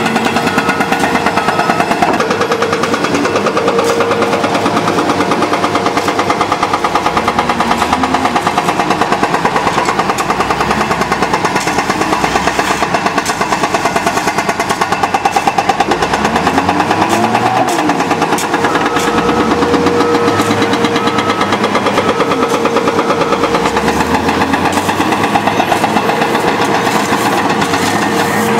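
Heavy construction machinery at work: a big diesel engine running with a fast, even chatter and a steady hum, its pitch rising and falling several times as the machine is worked.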